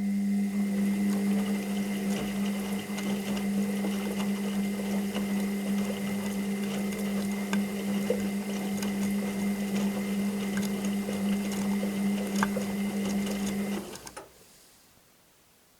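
Washing machine motor turning the drum during the wash: a steady humming whine with scattered small clicks, cutting off about fourteen seconds in as the drum stops.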